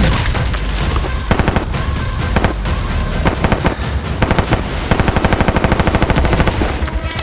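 Gunfire: scattered single shots and short bursts, then a long rapid burst of automatic fire about five seconds in.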